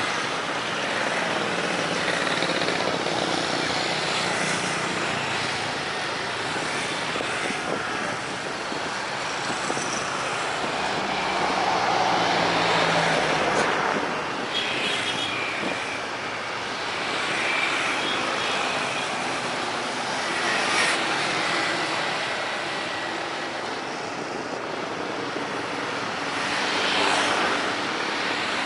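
Road traffic passing, cars and motorbikes swelling and fading by turns, mixed with the distant engine noise of an approaching jet airliner on final approach.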